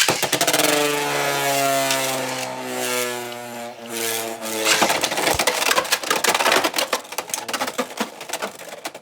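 Two Beyblade X spinning tops are launched into a plastic stadium. They whir with a steady tone that slowly falls in pitch as they spin, then clatter and knock against each other and the stadium walls in rapid irregular clicks from about five seconds in.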